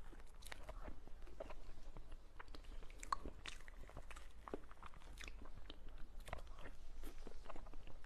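Close-miked eating of a soft mousse dessert with a spoon: irregular small mouth clicks and smacks, with the spoon scooping from a plastic tub.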